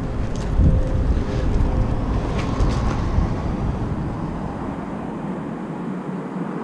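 Wind buffeting the camera microphone, a gusty low rumble that eases off about five seconds in, with a few light clicks about two to three seconds in.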